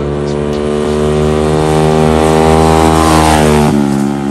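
Go-kart engine running and getting louder as the kart approaches, then dropping in pitch as it passes, about three and a half seconds in.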